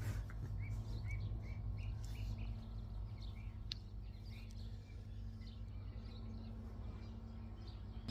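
Small birds chirping: a quick run of short, high chirps, thinning out after about three seconds, over a steady low hum.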